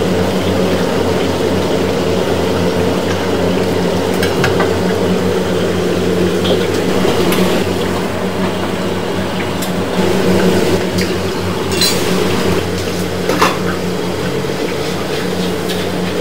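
Chicken wings deep-frying in hot oil in a wok, sizzling steadily over a constant low hum, with a few sharp clinks of a metal ladle against the wok.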